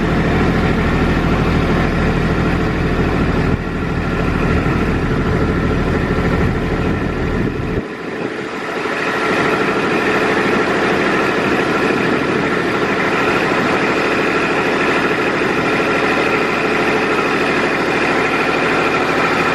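Heavy machine's engine idling steadily. About eight seconds in, the deep low rumble drops away and a steadier, higher hum carries on.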